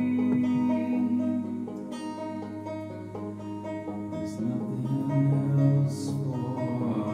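Live folk performance: a banjo picked steadily under a male voice singing long held notes. About four seconds in, the voice drops to a low held note.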